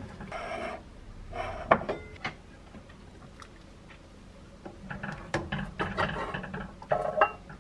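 Kitchen utensils clinking and scraping: chopsticks tapping a ceramic bowl, then a ladle scraping and knocking in a pot of soft tofu stew as it is dished into a bowl. There are two sharp clicks about two seconds in, then a run of clinks and scrapes near the end.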